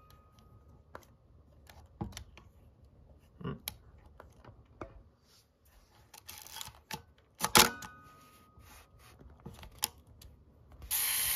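Fujica STX-1 35mm SLR being handled: scattered small mechanical clicks from its levers and buttons, with one sharp metallic click and a short ring about seven and a half seconds in. Near the end the self-timer starts a loud, steady whirring buzz as its lever runs down.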